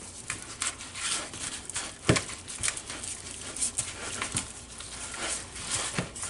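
Gloved hands squishing and turning seasoned chicken thighs in a mixing bowl: irregular soft slaps, squelches and rustles, with one louder knock about two seconds in.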